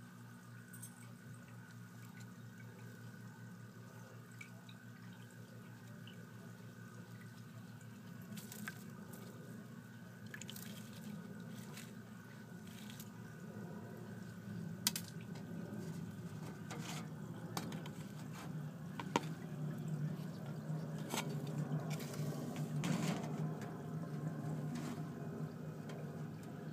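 A steady low hum with scattered light clicks and taps, which come more often in the second half.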